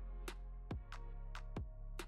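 Background electronic music: low sustained bass notes under sharp drum hits about three times a second.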